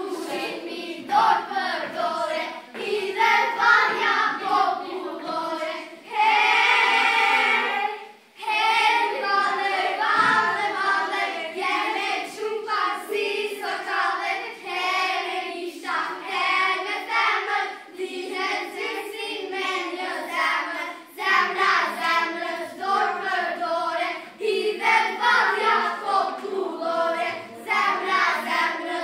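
A group of young girls singing together in chorus, with one long held note about six seconds in.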